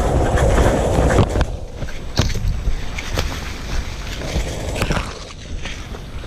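Rumbling wind and handling noise on a body-worn microphone, with several sharp clicks or snaps scattered through it. The rumble is heaviest in the first second or so and eases after that.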